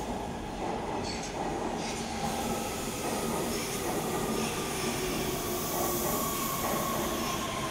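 Metro B Line subway train rolling into an underground station along the platform: a steady rush of wheel and motor noise with a faint high whine held throughout.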